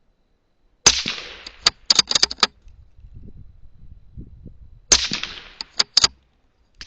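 Two shots from a CZ 452 American .17 HMR bolt-action rimfire rifle, about four seconds apart, each with a short fading tail. After each shot comes a quick run of sharp clicks as the bolt is worked to chamber the next round.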